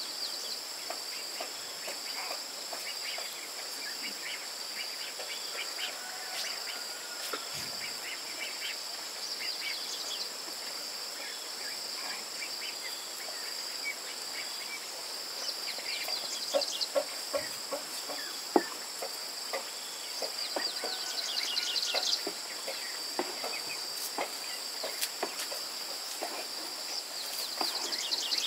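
Insects droning steadily in a high, constant whine, with short bird chirps now and then and scattered light clicks and knocks.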